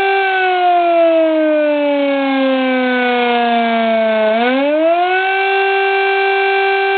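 S-40 electromechanical air raid siren sounding loud: its steady tone sinks slowly in pitch for about four seconds, then climbs quickly back up and holds steady again.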